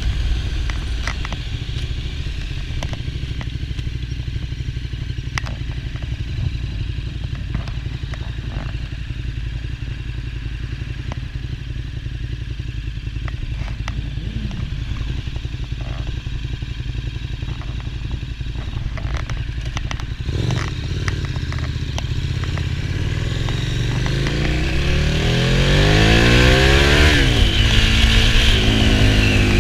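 Kawasaki Z800 inline-four motorcycle engine heard on board, running at low revs while rolling along for about twenty seconds. From about 24 s in it accelerates, the pitch rising, dropping at a gear change and rising again, louder toward the end.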